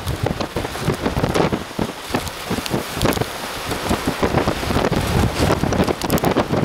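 Storm-force wind buffeting the microphone in loud, irregular gusts over a steady rushing hiss.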